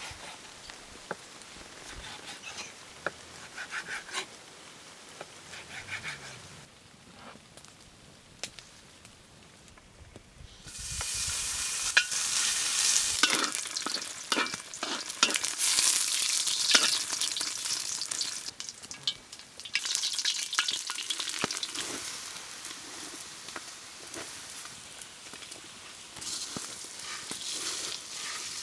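Pieces of sheep tail fat frying and sizzling in a hot wok, stirred with a wooden spatula. The sizzling starts suddenly about ten seconds in, is loudest for several seconds, then settles to a lower crackle.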